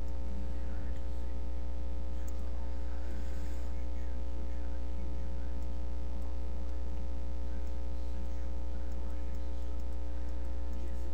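Steady low electrical mains hum with a stack of higher overtones, unchanging throughout.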